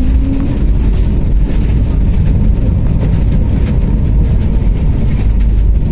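An airliner landing: a loud, steady rumble with most of its weight deep down, with no change in pitch.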